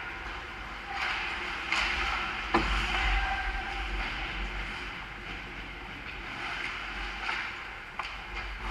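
Ice hockey skates scraping and carving on the ice around the goal crease, with several sharp clacks of sticks and puck, the loudest about two and a half seconds in, over a steady low rumble.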